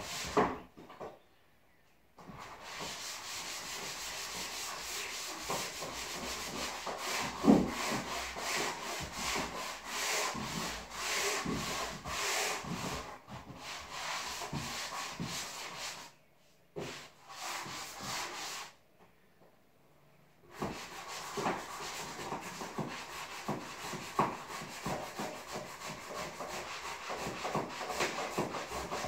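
Drywall being hand-sanded with a sanding pad: rapid back-and-forth scrubbing strokes, broken by a few pauses of a second or two.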